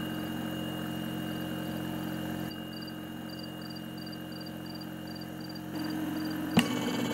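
A steady mechanical hum with a faint high whine, dropping in level about two and a half seconds in while faint high chirps repeat in quick pairs several times a second; the hum comes back louder near the end, and a single sharp click sounds just before the end.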